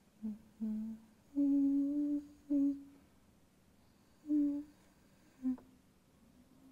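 A woman humming a slow, halting tune: about six low notes, the third held longest, with a pause of over a second before the last two.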